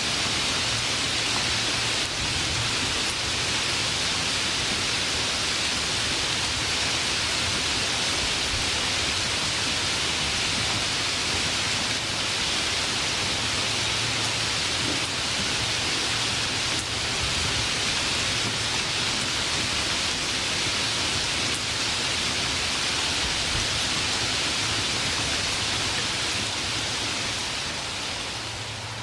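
Steady rainfall, a dense even hiss with no thunder, fading down over the last couple of seconds.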